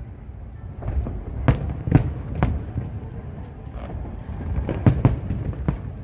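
Aerial fireworks shells bursting. A run of booms about half a second apart comes after the first second, then three more near the end, over a steady low rumble.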